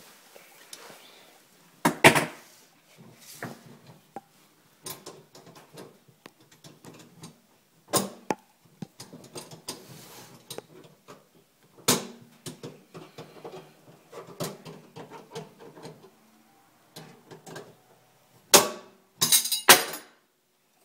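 Irregular knocks and clatter of tools and plumbing parts being handled in the cabinet under a kitchen sink, with scattered light rattling between the hits. The loudest knocks come about two seconds in and in a quick cluster near the end.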